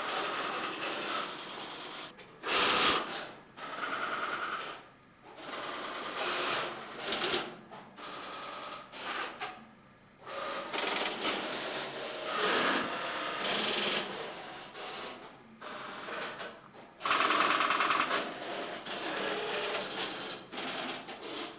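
Selectors and relays of a Tesla P51 electromechanical telephone exchange clattering as they work: irregular bursts of rapid mechanical rattling and clicking. There are two louder bursts, a short one near the start and a longer one later.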